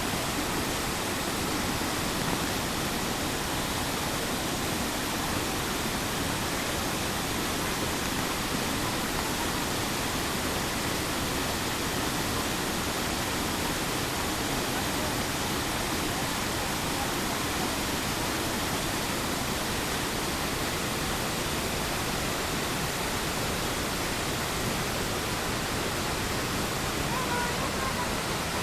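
Waterfall crashing into a pool, a steady, even rush of falling water.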